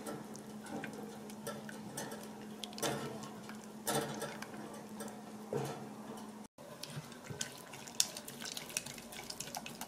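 Kitchen handling sounds: scattered light knocks and clicks over a steady low hum, which stops abruptly about six and a half seconds in.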